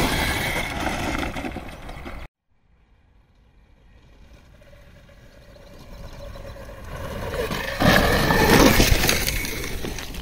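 36 V electric quad bike riding over a loose dirt track, with a crunchy noise of tyres on dirt and small stones. The sound breaks off abruptly a little over two seconds in. It then builds steadily as the quad comes back toward the microphone, is loudest as it passes close about eight seconds in, and fades after.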